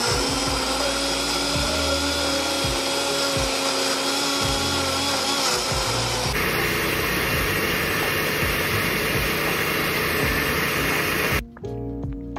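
Oster countertop blender running at full speed, puréeing cooked asparagus in chicken broth into soup. The motor sound changes character about six seconds in and cuts off sharply about a second before the end.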